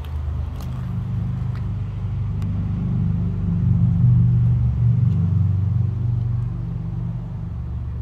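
1969 Chevrolet Camaro's 396 big-block V8 idling with a steady low rumble, growing louder toward the middle and then easing back.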